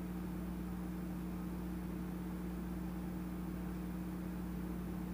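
Steady low hum with two constant tones and a faint hiss, unchanging throughout; no knocks or footfalls.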